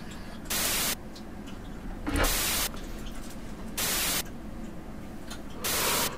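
Video-chat site's TV-static sound effect while it searches for the next stranger: four short blasts of white-noise hiss, each about half a second long and coming about every one and a half to two seconds.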